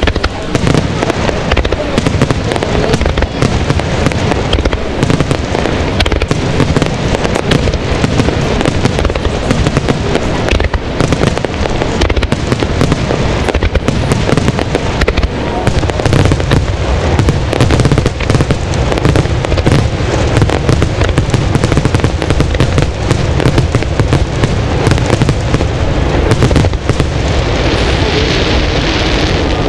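Aerial fireworks display: a dense, continuous barrage of shell bursts and bangs.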